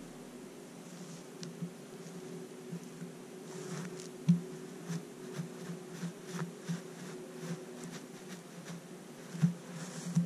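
A flying insect buzzing in short, irregular bursts close to the microphone, with scattered light ticks, over a steady low hum.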